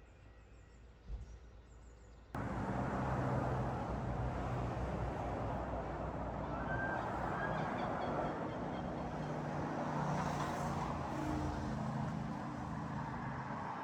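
Steady low engine hum and rumble of a vehicle, cutting in abruptly about two seconds in after a near-quiet start.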